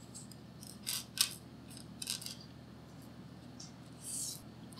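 Small metal screws and brass standoffs clicking against each other and the tabletop as they are handled, with a short rustle near the end.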